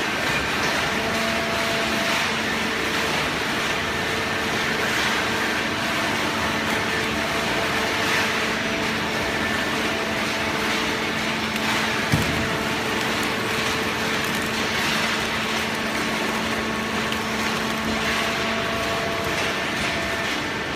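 Horizontal hydraulic cardboard baling press running: a steady hum from its electric motor and hydraulic pump over a mechanical noise, with one sharp knock about twelve seconds in.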